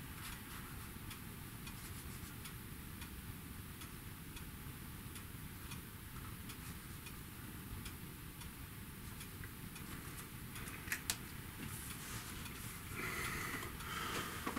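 Faint, steady ticking, about two ticks a second, over quiet room tone while a marker writes on photo cards. Near the end comes a rustle of card and paper as a card is picked up.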